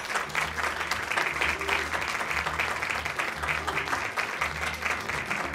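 Audience applauding, a dense steady patter of clapping, over background music with a low, regular beat.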